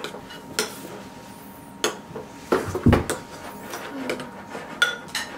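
A spoon clinking and knocking against the mixing container while slime is being stirred: a few scattered sharp knocks, the loudest, with a dull thump, about three seconds in.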